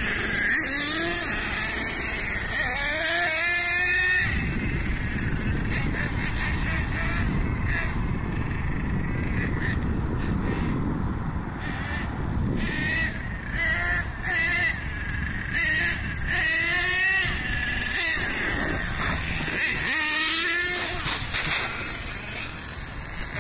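Small nitro engine of an HPI Savage 4.6 RC monster truck, an LRP ZR.30, revving up and down as the truck is driven, with several quick rising bursts of pitch over a steady low rushing noise.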